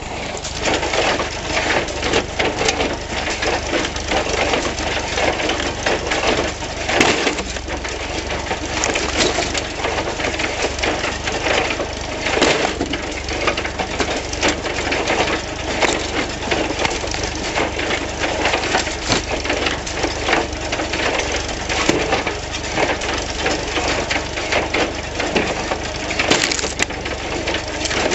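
Hay baler converted to a log splitter, its plunger crushing and splitting tough, stringy wood: a continuous crackling and splintering with sharper loud cracks now and then, over the steady running of the machine.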